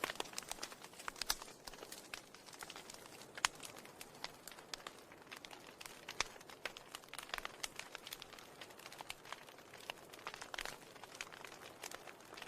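Faint, irregular crackling: scattered soft clicks and pops over a steady hiss.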